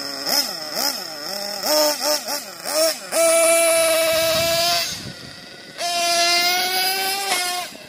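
Small nitro engine of a 1/8-scale off-road RC buggy being revved. Quick throttle blips rise and fall for about three seconds. It is then held at high revs for about a second and a half as the buggy runs off, eases back, and is held high again for about a second and a half before dropping near the end.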